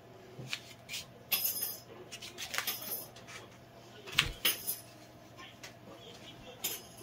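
Wire loop carving tool scraping and cutting into a solid clay block, heard as short scratchy scrapes and scattered sharp clicks, with a heavier knock about four seconds in.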